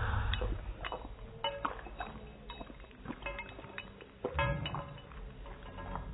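A dog's metal ID tag clinking against the dish as the dog laps up gravy, with wet lapping underneath. There are several sharp clinks, each with a short ring after it, the clearest about a second and a half in and again about four and a half seconds in.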